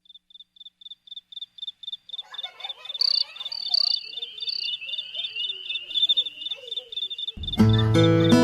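Insects chirping: a high chirp repeating steadily about three times a second, joined about two seconds in by a denser chirring layer. Strummed guitar music comes in near the end.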